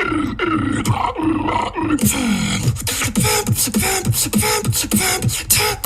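Beatboxing: a fast run of percussive mouth clicks and snares, several a second, each paired with a short, falling vocal bass tone.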